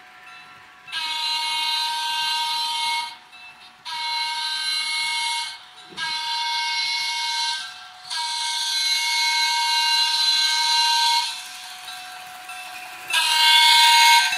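Electronic horn sound from a model subway train's sound decoder, blown in five long blasts with short gaps; the last blast starts about a second before the end and is the loudest. Between the blasts a quieter steady lower tone runs on.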